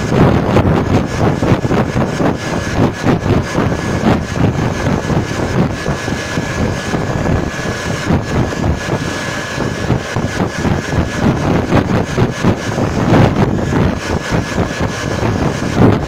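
Hair dryer blowing hot air close by to heat-shrink a new plastic wrap onto an 18650 battery: a steady high motor whine under an uneven, fluttering rush of air.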